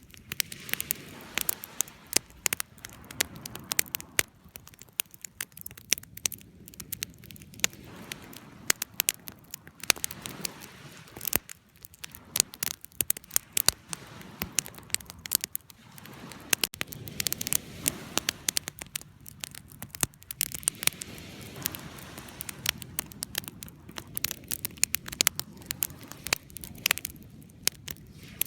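Campfire burning, with irregular sharp crackles and pops of wood over a low, steady rush of flame.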